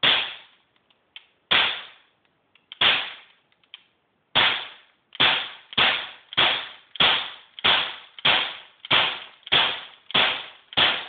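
Crosman P10 CO2 BB pistol fired one-handed in a string of about fourteen shots. Each sharp pop trails off in a short echo. The first four come about a second and a half apart, then the firing speeds up to a little under two shots a second.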